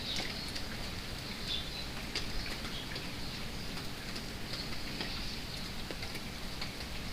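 Steady rain falling, with many small separate drops tapping, and short bird chirps now and then above it.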